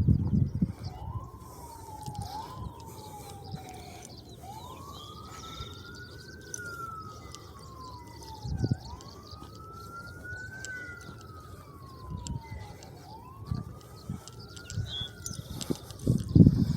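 A siren wailing, a single tone that rises and then slowly falls in cycles of about four seconds, starting about a second in. Low thumps at the start and near the end.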